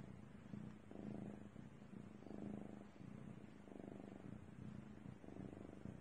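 Domestic cat purring close up, a steady low purr that swells and eases with each breath, about once every second and a half.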